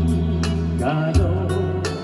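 Instrumental introduction of a Korean pop song backing track: sustained bass notes and regular drum hits under a melody line.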